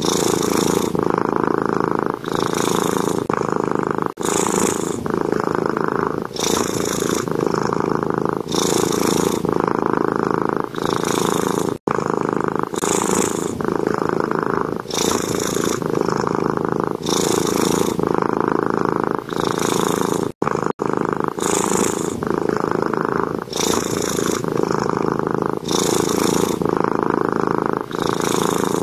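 A cat purring steadily and loudly, swelling and easing in a regular rhythm about every one and a half seconds.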